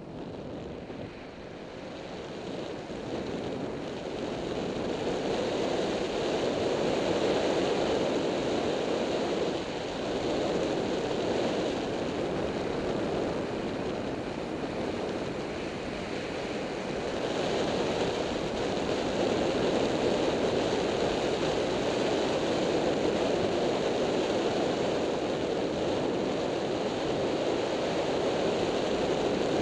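Wind rush over the camera microphone on a moving Yamaha FZ6-R sport motorcycle, a steady roar of air with the motorcycle's running and tyre noise beneath it. It grows louder over the first several seconds as speed builds, eases off a little midway, then holds steady.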